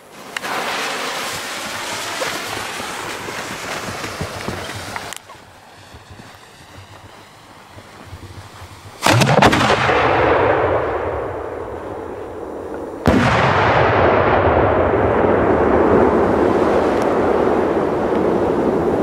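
A steady hiss for the first five seconds as the fuse is lit. About nine seconds in, a large aerial firework shell launches from its mortar tube with a loud bang. About four seconds later the shell bursts overhead with a second heavy boom that rolls on and slowly fades.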